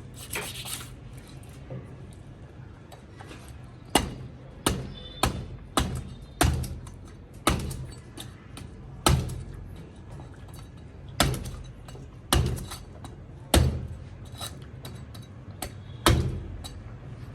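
A knife chopping on a cutting board: about a dozen separate, irregularly spaced chops, each a sharp knock with a dull thud. A short scrape comes just before them, near the start.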